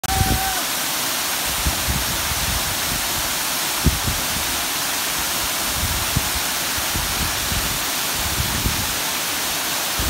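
Waterfall pouring down rock into a pool: a steady, loud rush of falling water.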